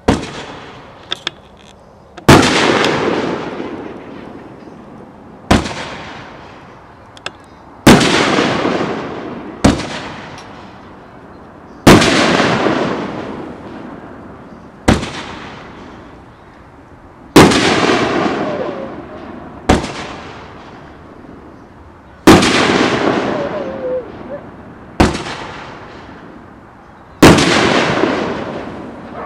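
Pyro Box Presidential Power 500 g firework cake firing one shot at a time, about every five seconds. Each shot is a sharp launch thump followed about two and a half seconds later by a loud aerial shell burst that fades out slowly. Six shots are heard.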